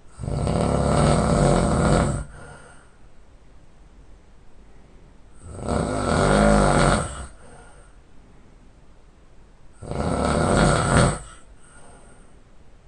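A sleeping man snoring loudly and heavily: three long, rough snores about four seconds apart, each followed by a short, fainter breath.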